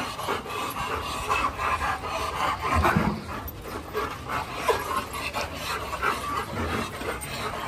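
A pack of dogs (golden retrievers, Labradors and a beagle) crowding close and panting as they jostle one another, with a somewhat louder moment about three seconds in.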